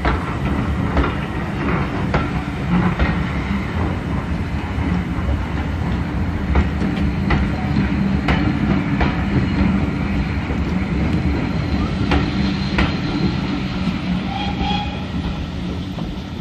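A train of passenger coaches rolling past at low speed, its wheels clicking irregularly over rail joints above a steady rumble, fading slightly as the train draws away near the end.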